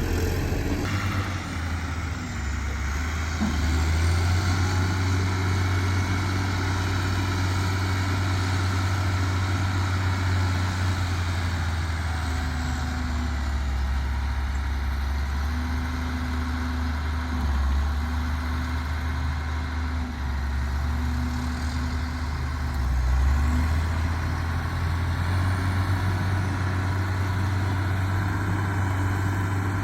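Heavy diesel engine of earthmoving machinery running steadily with a deep low drone, its pitch shifting slightly a few times.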